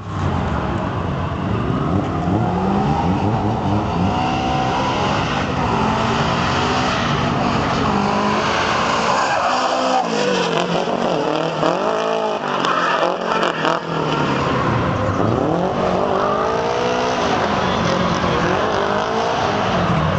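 Drift car's engine revving hard as it slides past, the revs swooping up and down again and again, with tyres squealing. It is loudest around ten to fourteen seconds in.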